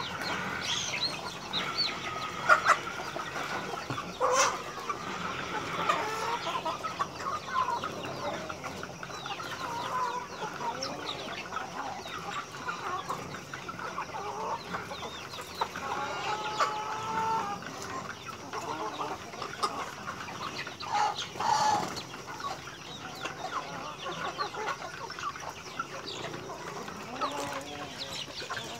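A flock of chickens clucking and calling continuously as they crowd around feed being scattered, with a few louder calls standing out about 2.5 s, 4.5 s and 21.5 s in.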